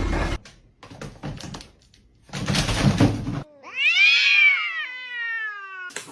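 A cat's long, drawn-out meow that rises and then slowly falls, lasting about two and a half seconds in the second half. Before it come a few faint clicks and a loud, rough rustling noise lasting about a second.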